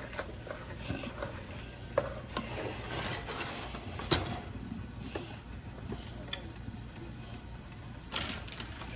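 Scattered light clicks and knocks of a kitchen utensil against a dish, with the sharpest tap about four seconds in and a short scrape near the end.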